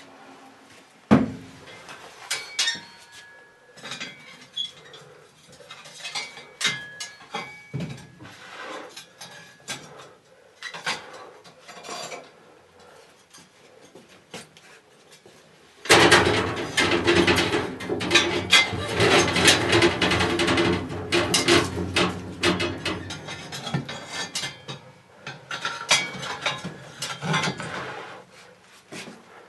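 Scattered metal clinks and knocks at a raku kiln, then about halfway a loud stretch of dense clattering noise lasting about seven seconds as the kiln is opened on its red-hot ceramic piece, then a few more clinks.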